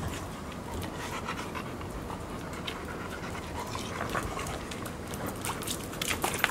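Golden retrievers panting steadily, with scattered short clicks and splashes that grow thickest near the end.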